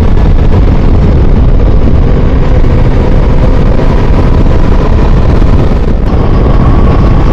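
Heavy wind rush on the microphone of a Ducati Multistrada V4S rider at road speed, with the bike's 1158 cc V4 engine humming faintly underneath; the engine note rises about six seconds in.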